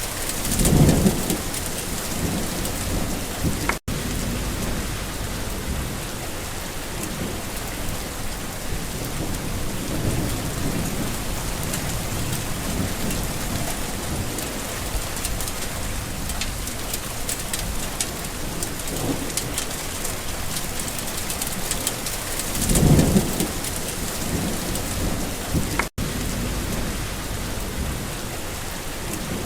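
Steady heavy rain falling, with thunder rumbling low twice: about a second in and again some twenty seconds later. The sound drops out for an instant twice.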